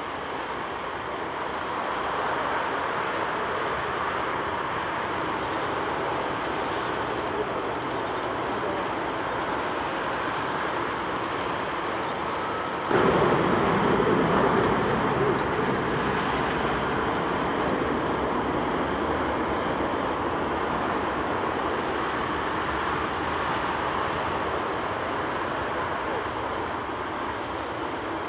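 Boeing 747-8F freighter's four GEnx-2B turbofans running at taxi power, a steady jet rush that becomes abruptly louder about halfway through.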